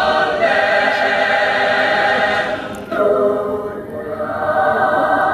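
Choir singing sustained chords, with a short break about three seconds in before the next phrase starts.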